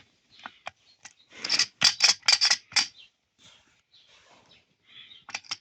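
A quick run of sharp, hard clicks and clacks, about eight in a second and a half, with a few scattered ticks around it.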